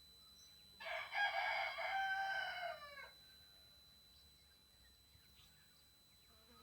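A rooster crows once, about a second in, for roughly two seconds, its pitch dropping at the end. Under it is a steady high-pitched squeal from a TriStar TS-MPPT-60 solar charge controller.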